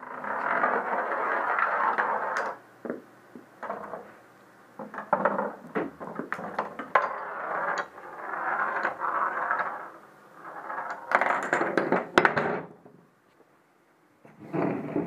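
A Rube Goldberg chain reaction on wooden toy train track: rolling noise in several long stretches, broken by sharp clicks and clacks of falling pieces. A fast run of clacks from wooden blocks toppling comes shortly before the end.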